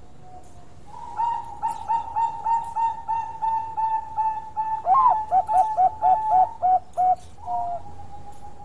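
Zebra dove (Thai-bred perkutut bangkok) singing: a rapid run of short coos, about four a second. About halfway through the coos get louder and lower, and the song closes on a short final note.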